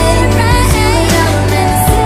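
Background pop song with a steady beat and a melody line.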